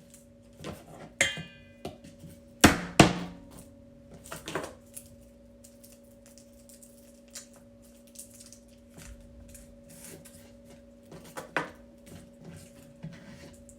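Kitchen utensils and dishes clattering and knocking during food preparation, with a brief metallic ring a little over a second in and two hard knocks about three seconds in, over a steady appliance-like hum.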